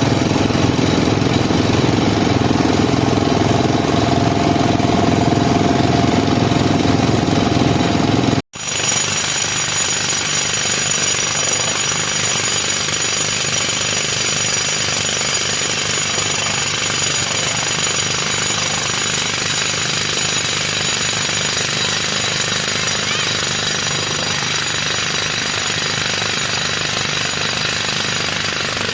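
JCB JS215 tracked excavator running loud and steady while digging, with a brief cut in the sound about eight and a half seconds in.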